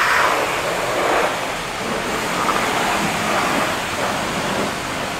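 High-pressure car wash wand spraying water onto a car's front bumper and grille: a steady, loud hiss of spray.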